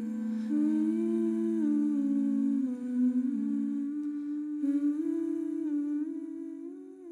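A woman's voice humming a slow wordless melody, layered in two-part harmony, as the closing of a song. The humming fades out near the end.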